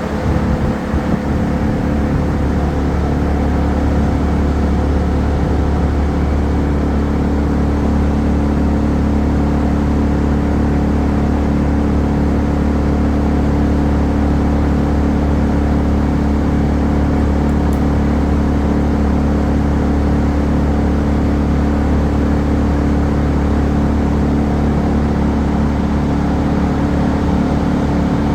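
An engine running steadily at one constant speed throughout, loud and unchanging after it builds up in the first second.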